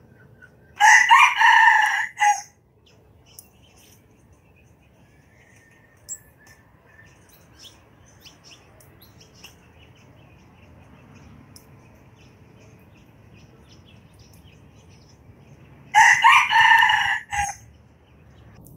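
Red junglefowl rooster crowing twice, each crow short at about a second and a half, the second coming about fifteen seconds after the first.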